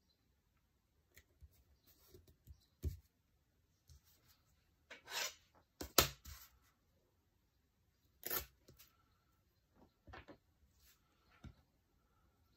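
Paper planner pages and stickers being handled on a wooden desk: scattered short rustles and scrapes of paper, and a sharp click about six seconds in as a steel ruler is laid down on the page.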